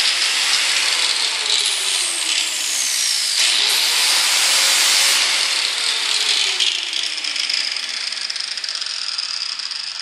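Electric grinder running with its disc in contact, a loud continuous grinding hiss; the motor's pitch sags slowly as it is loaded.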